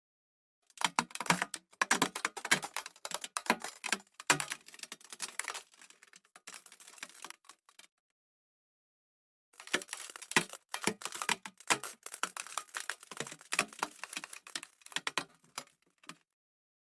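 Friction sound effect: rapid, dense crackling clicks in two runs of about seven seconds each, separated by a silent gap of about a second and a half.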